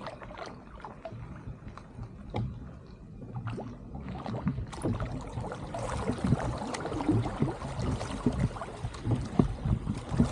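Wooden oars rowing a duck punt: blades dipping and splashing through the water and dripping between strokes, with short knocks throughout. Louder from about halfway in.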